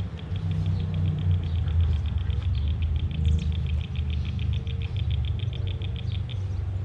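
A rapid, even series of high chirps, about eight a second, from a small animal calling; it stops shortly before the end. Under it runs a steady low rumble.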